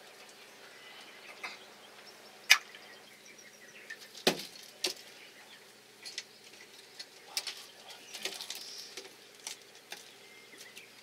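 Irregular sharp knocks, taps and clicks as a live fish and a knife are handled on a boat's fiberglass hatch lid while the fish is spiked to kill it. The loudest knock comes about two and a half seconds in, with a few more single knocks spread through the rest.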